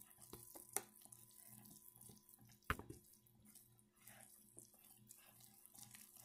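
Faint wet swishing of a wire whisk stirring milk and eggs into flour in a bowl, in a steady rhythm of strokes, with a few sharp clicks of the whisk against the bowl, the loudest about three seconds in.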